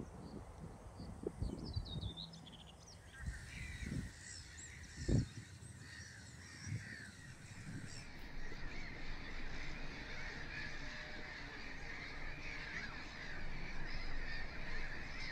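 A black-headed gull breeding colony calling in a dense, continuous chorus of overlapping harsh calls, building from about three seconds in. Wind buffets the microphone with low thumps in the first few seconds.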